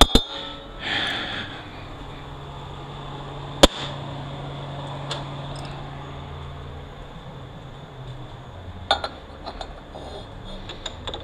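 Metal transmission parts and tools being handled on a bench: scattered clicks and clinks, with one sharp metallic strike about four seconds in and a faint low hum for a few seconds after it.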